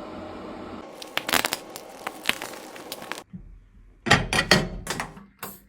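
Crackling, crinkling clicks from work on an iPhone 12 display during a glass replacement, then a few short, loud, sharp rasps in the last two seconds.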